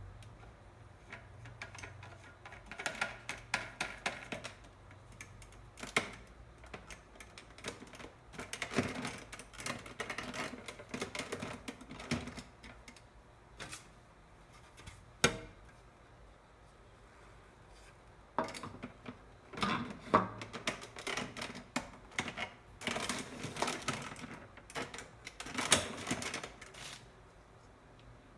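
Plastic parts of an electric fan being handled and fitted together during reassembly: irregular clicking, rattling and scraping in bursts, with a few sharp snapping clicks.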